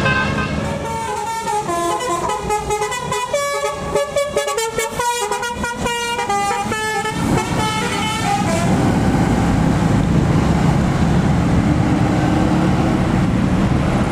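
A bus's telolet horn, a multi-note musical air horn, plays a quick tune of stepping notes for about eight seconds. It then gives way to a steady rumble of the bus's engine and road noise.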